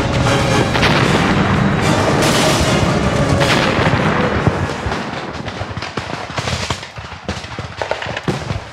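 War-film battle sound: gunfire and explosions over a dramatic music score, thinning out about halfway through to scattered single shots.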